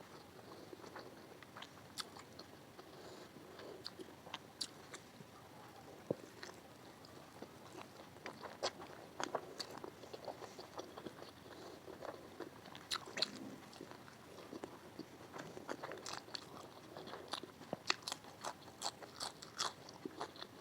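A person chewing and biting chicken biryani close to the microphone, with many short, sharp mouth clicks that come thicker in the second half.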